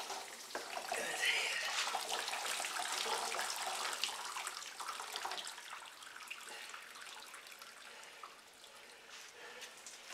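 Water sloshing and splashing in a cooler as a scalded turkey is lifted out, water streaming off its feathers back into the cooler. The splashing is loudest in the first half and fades over the last few seconds.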